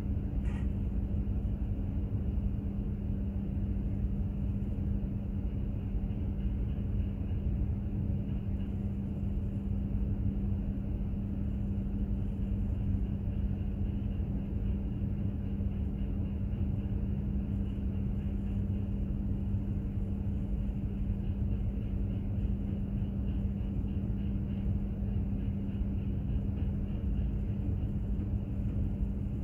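Steady low rumble of a container ship under way, with a constant machinery hum on one pitch.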